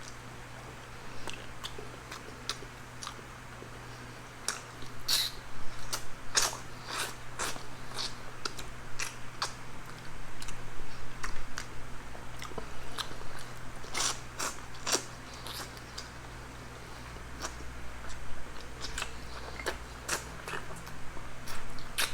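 Close-miked eating sounds: chewing and crunching with irregular sharp clicks and smacks, busiest in the middle, over a faint steady low hum.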